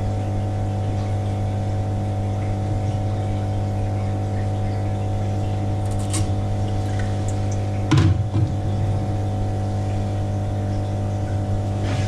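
Steady low mechanical hum of lab tank equipment, such as a water pump, with a few small splashes and a sharper knock about eight seconds in as a hand works in the tank water.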